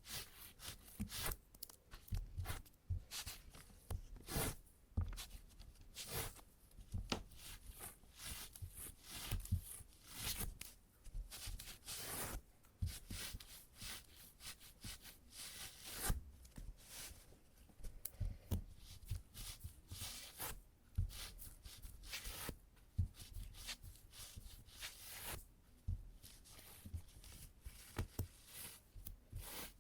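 Adhesive tape being pressed onto trousers and peeled off again and again to lift embedded cat hair: a run of short peeling strokes at irregular intervals.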